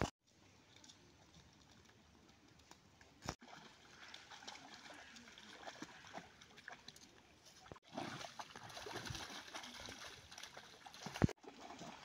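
Water splashing and sloshing as a Belgian shepherd wades through a shallow stream, over the stream's steady trickle. The splashing gets louder about two-thirds of the way in, and the sound breaks off abruptly several times.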